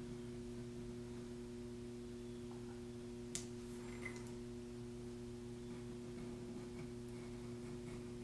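Steady electrical mains hum, with a few faint light scratches and clicks of an X-Acto craft knife cutting screen tone film on paper, the clearest a little over three seconds in and again about a second later.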